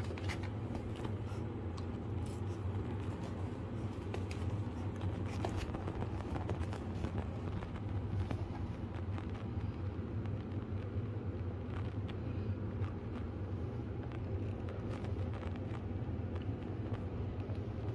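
A steady low hum with a few faint clicks and rustles over it.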